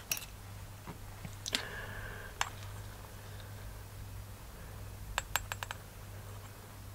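Scattered light clicks and taps of small parts and tools being handled on a nitro RC truck engine, with a quick run of about five clicks about five seconds in, over a faint steady low hum.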